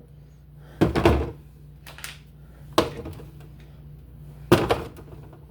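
Condiment bottles being set down on refrigerator shelves, a few separate thunks and knocks, the loudest near the end.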